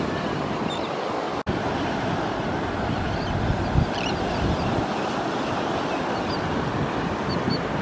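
Surf washing onto the beach, with wind rumbling on the microphone; the sound briefly cuts out about a second and a half in.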